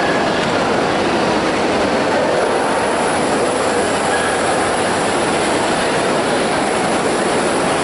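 Steady, dense hubbub of a large crowded exhibition hall: many voices blur into one even noise, with no single voice standing out.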